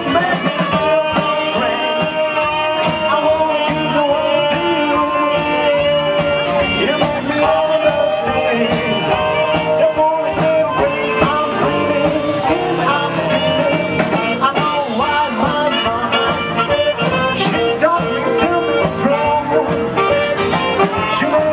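Live swing band playing a swing tune with no sung words: saxophones and electric guitar over a drum kit.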